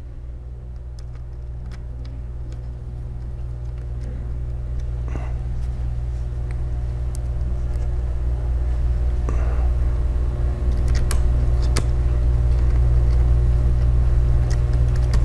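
A low steady hum that slowly grows louder, with a few faint clicks and taps of a screwdriver and small laptop parts being handled.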